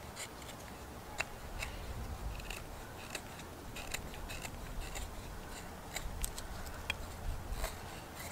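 LionSTEEL fixed-blade knife whittling a stick of dry wood: short scraping cuts as the blade shaves off curls, about two a second at an irregular pace.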